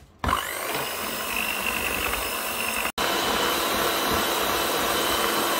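Moulinex Easymax electric hand mixer switching on, its motor whine rising as it spins up, then running steadily as the beaters whip eggs and sugar. The sound breaks off for an instant about halfway and resumes at the same pitch.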